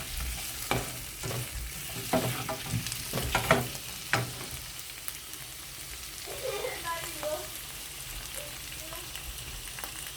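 Vegetables and onion sizzling as they stir-fry in a pan. A spatula knocks and scrapes against the pan again and again through the first four seconds.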